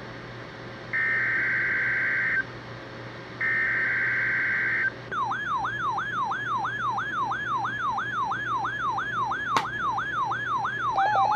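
Emergency Alert System SAME header data bursts from NOAA Weather Radio: the last two of the three identical header bursts, each a harsh electronic screech about a second and a half long. They are followed by an electronic alert tone that sweeps upward over and over, about four times a second, with a second pulsing beep joining it near the end.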